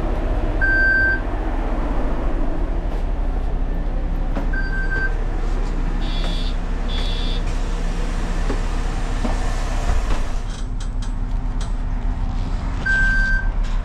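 City bus engine running steadily under the cabin, with short electronic beeps about a second in, again at about four and a half seconds and near the end; the first is the fare validator accepting a tapped card. A pair of higher two-tone chimes sounds around six to seven seconds.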